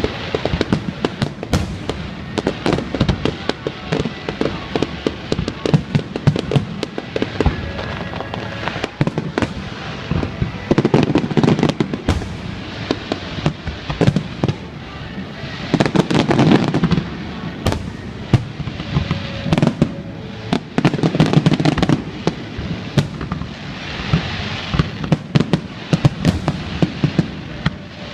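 Fireworks display: a rapid, continuous run of sharp bangs and crackles from bursting shells, with heavier low booms about 11, 16 and 21 seconds in.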